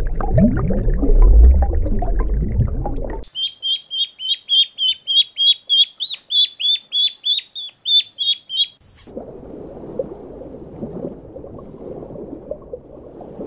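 A bird calling, a high chirp repeated rapidly at about three to four notes a second for about five seconds. It follows a loud low rough sound in the first three seconds, and a quieter low rustling sound follows it.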